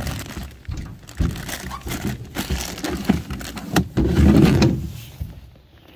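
Rummaging in a small plastic cooler: plastic bags crinkling and hard plastic clacking in a string of short knocks, with a louder low thump about four seconds in as the cooler lid is handled.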